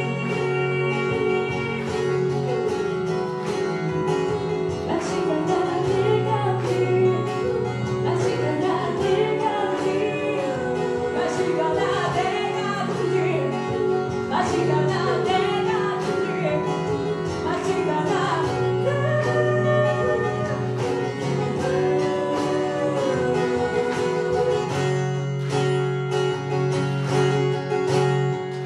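A woman singing live with acoustic guitar over layered loops played back from a Boss RC-300 loop station. Held chord tones hang under the melody throughout, and a low bass part comes and goes every few seconds.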